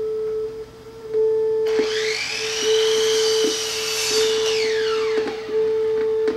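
Hi-fi audio track of a VHS tape playing back on a JVC-made Magnavox VR9160 VCR: a steady tone broken by short dropouts and clicks. From about two seconds in, a hissing sweep rises and then falls in pitch before fading out. The hi-fi sound plays while the VCR gives no picture.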